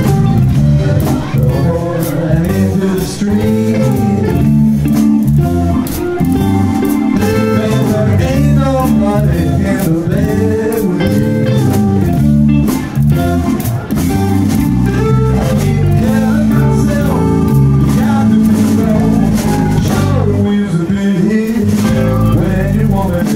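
A live blues band playing a slow blues: electric guitar, bass and drums, with a tenor saxophone in the band.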